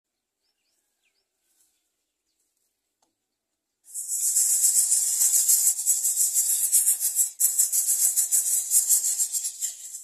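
Greater coucal nestlings begging: a loud, rapid, high-pitched rasping hiss that starts abruptly about four seconds in, after near silence with a few faint chirps.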